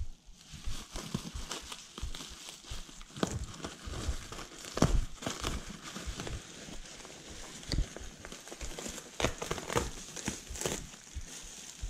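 Bubble wrap crinkling and rustling as it is pulled and crumpled off a bike frame by hand. There is an irregular run of crackles, with a few louder ones.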